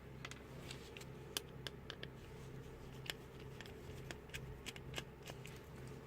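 Faint, irregular small clicks and scrapes of a cheap analog multimeter's plastic parts being handled and pried apart, as its meter movement is pulled out.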